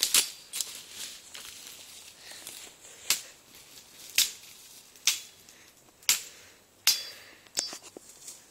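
Machete chopping through brush and small saplings: sharp cracking strikes, about one a second with a pause between one and three seconds in, a couple followed by a brief metallic ring.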